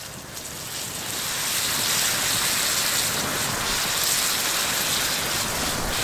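Chunks of meat sizzling in a frying pan over a campfire: a steady hiss that grows louder about a second in and stays strong.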